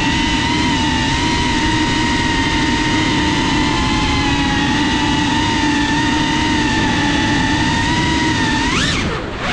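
Electric motors and propellers of a CineLog 35 cinewhoop FPV drone whining steadily in low flight. Near the end the pitch rises sharply, then drops as the throttle comes off and the sound briefly dips.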